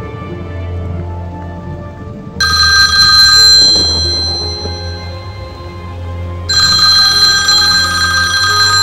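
Corded desk telephone ringing twice with an electronic ring, the first ring fading out and the second running on, over a low, steady music score.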